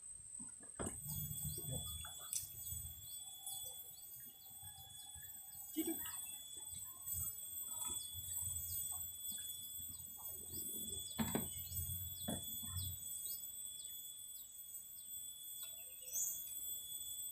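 Open-air ambience of birds chirping in short repeated falling notes over a steady high-pitched insect drone, with a few sharp knocks and low rumbling now and then.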